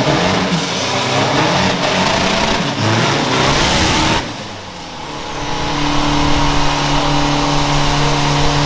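Drag-racing pickup truck revving hard with its rear tyres spinning in a burnout, then driving away down the strip. The noise drops abruptly about four seconds in, leaving a steady engine drone.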